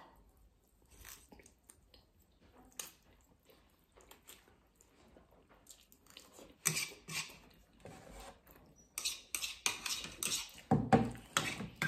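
Close-up eating of spicy instant noodles: slurping and chewing with chopsticks clicking against the plates. Faint and sparse at first, louder and busier from about six and a half seconds in.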